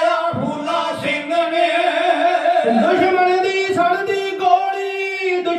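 A Kavishri jatha singing together in Punjabi, several voices holding long, high drawn-out notes of a verse.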